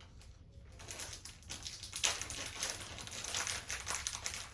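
Irregular light clicks and crinkly scraping of small tools and parts being handled on the laptop, busiest in the second half.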